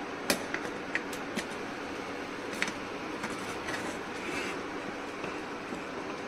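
A spoon knocking and scraping against a cooking pot as yogurt is stirred, with a handful of sharp clicks in the first three seconds, over a steady hiss.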